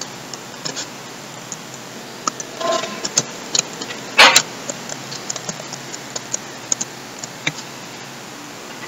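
Scattered keystrokes on a computer keyboard: irregular sharp clicks over a steady background hiss, with one louder knock about four seconds in.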